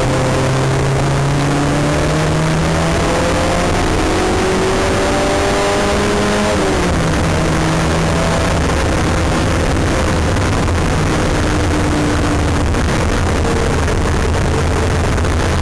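Porsche 924's four-cylinder engine heard from inside the cabin, under load with a rising pitch for about six and a half seconds, then dropping sharply in pitch and running at a steadier, lower pitch, with road and tyre noise throughout.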